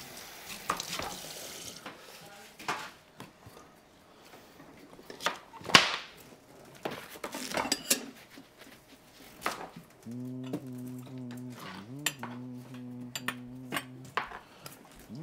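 Pots, bowls and cutlery clinking and knocking on a kitchen counter during meal preparation, in scattered sharp strikes, the loudest about six seconds in. From about ten seconds in, a steady low hum runs for about four seconds.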